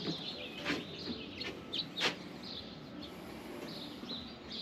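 Birds chirping and singing in short repeated calls, with a couple of sharp clicks, the loudest about two-thirds of a second and two seconds in.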